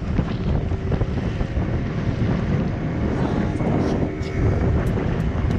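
Heavy wind buffeting the microphone on a fast-moving aluminium boat out on a choppy river, a loud, rough, steady rumble.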